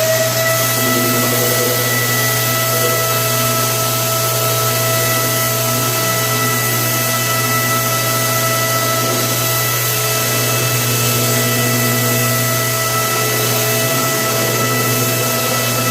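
Electric random orbital sander running steadily at full speed on a timber floor edge, a constant high whine over a low hum.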